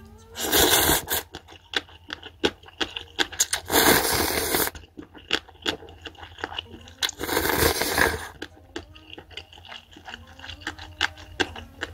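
A person slurping up King Ttukkeong mala cup-ramen noodles in three long, loud slurps, each about a second long, with wet chewing clicks in between.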